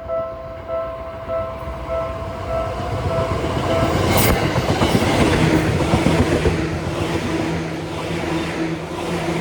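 Japanese railway crossing alarm ringing its repeated two-tone 'kan kan', just under two strikes a second. About three seconds in, a train rushes through the crossing and drowns the bell; a steady low hum from the train runs under the noise over the last few seconds.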